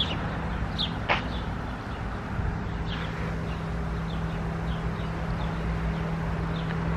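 Outdoor ambience: short, high bird chirps every second or so over a steady low hum and an even hiss.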